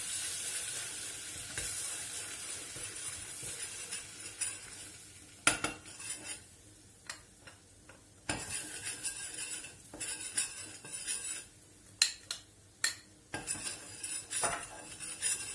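Butter sizzling in a stainless steel pot as flour is poured in, the hiss fading over the first few seconds. From about five seconds in, a spoon stirs the flour and butter, clinking and scraping against the pot as the flour toasts.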